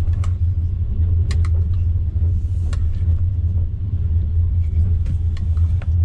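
Steady low rumble of a moving vehicle heard from inside, with scattered light clicks and knocks.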